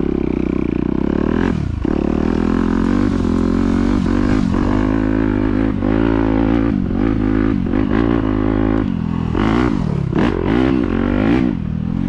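Yamaha YZ250F's four-stroke single-cylinder engine being ridden hard, its pitch rising and falling over and over as the throttle is opened and closed. Near the end comes a run of quick revs and throttle chops.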